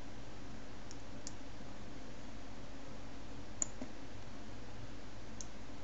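A few faint computer mouse clicks, about four, over a steady low hum and hiss of the recording microphone; the loudest click comes a little past halfway.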